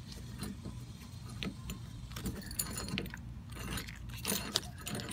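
Light metallic clicks and clinks as a new outdoor hose hydrant is turned by hand, threading it onto the supply pipe inside the wall. A low steady rumble runs underneath.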